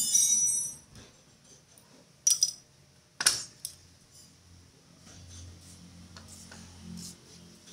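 Metal hand tools and steel parts clinking during an underchassis repair: a ringing metallic clang at the start, then a few sharp clinks. A faint low hum runs through the second half.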